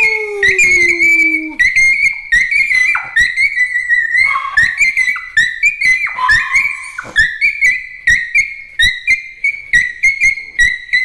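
Small dog 'singing': a high-pitched, squeaky whine-howl held near one pitch and breaking into many short squeals, one after another. A man howls a falling 'woo' along with it during the first second and a half.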